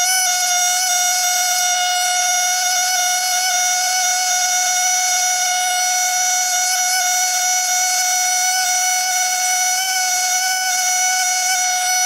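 Fossil-preparation air scribe running continuously with a steady high-pitched whine, its vibrating stylus tip chipping limestone away from an ammonite.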